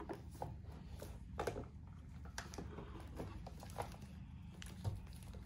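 Scattered light clicks and taps of plastic dolls and toy pieces being handled and set down, over a steady low hum.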